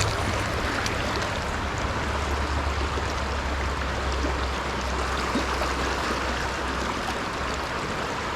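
Creek water running steadily, an even rushing of the current.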